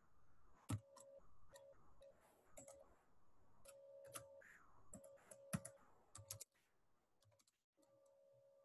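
Faint computer keyboard keystrokes, irregular, as text is typed. They stop about two-thirds of the way through.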